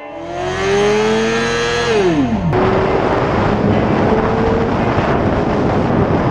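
Inline-four sport motorcycle engine revving up for about two seconds, then dropping sharply as the revs fall. About two and a half seconds in it cuts abruptly to the engine running at a steady high pitch under heavy wind noise.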